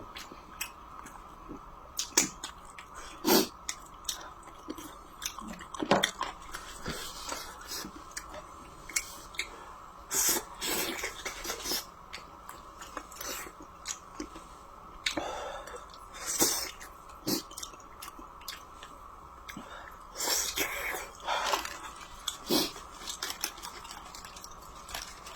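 A person chewing and eating food close to the microphone, with irregular short clicks and mouth sounds, a few louder ones scattered through.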